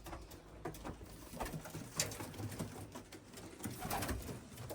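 Racing pigeons cooing, low and on and off, with scattered light clicks and knocks.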